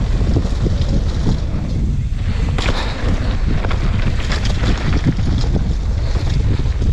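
Mountain bike descending a rough dirt and gravel trail: a steady rumble of tyres over the ground with scattered clicks and rattles from the bike, under heavy wind noise on the action camera's microphone.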